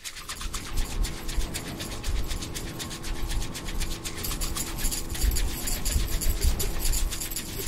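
Boat motor running with a low rumble and a steady hum, under a fast, continuous scratchy rasping.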